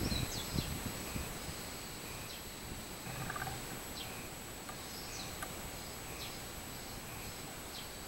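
Minmin cicadas (Hyalessa maculaticollis) singing in the tree canopy, a faint, repeating high-pitched call.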